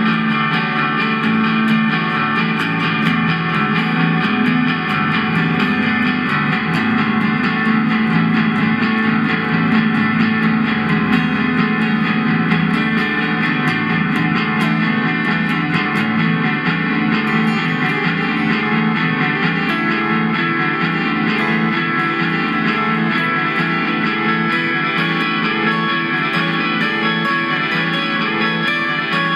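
Electric guitar played through an amplifier: a continuous, unbroken instrumental line of picked notes.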